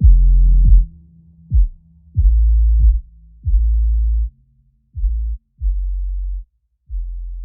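The end of an electronic music track: a series of deep, sustained bass notes, each with a sharp attack, growing quieter and shorter toward the end as the track fades out.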